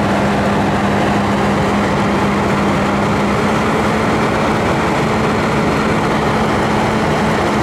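Cat 350L excavator's diesel engine running steadily close by: a loud, continuous drone with a low hum that steps up slightly in pitch about three seconds in.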